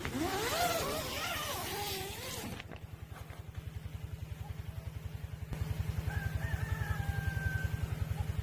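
A rooster crowing once, loudest in the first two and a half seconds, over the steady fast chugging of a small engine running. Near the end a thin high whistle-like call is held for over a second.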